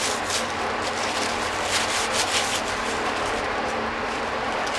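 Shop rag wiped over the bottom of a billet steel crank strap by gloved hands, a rubbing sound in uneven strokes.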